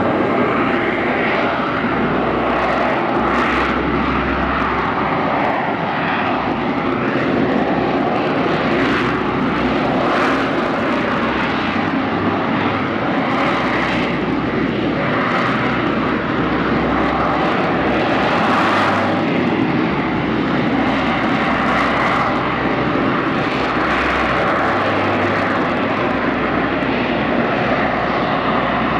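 Harrier jump jet's Rolls-Royce Pegasus turbofan running loud and steady while the jet hovers on vectored thrust: a continuous jet rush that swells and eases slightly.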